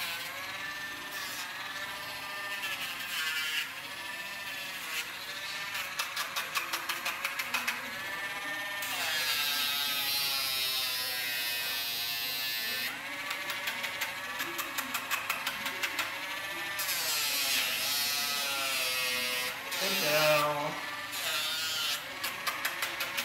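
Small rotary nail grinder (a nail Dremel) whirring, its pitch sagging and recovering again and again as it is pressed to the dog's nails, with stretches of rapid grinding chatter. A brief louder, lower sound about twenty seconds in.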